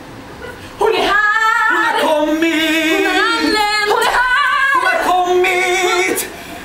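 A young woman singing solo with no accompaniment. She holds long notes with strong vibrato in two phrases, starting about a second in and breaking off shortly before the end.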